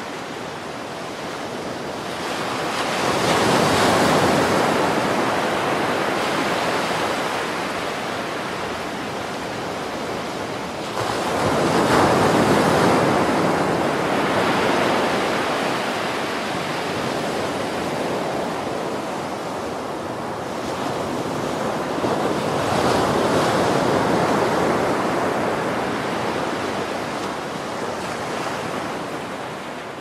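Open-ocean water rushing and washing along a moving cruise ship, a steady rush that builds into three slow surges and eases back between them.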